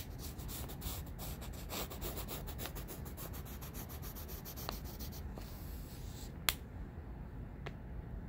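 Graphite pencil scratching across lined notebook paper in quick short strokes, hatching lines, which stop about five seconds in. A single sharp tick follows a little later, with a fainter one after it.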